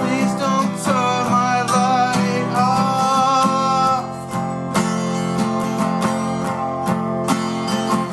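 Two acoustic guitars strummed together, one of them a Fender, with a man singing a held, wavering vocal line over them. The voice stops about four seconds in and the guitars carry on alone.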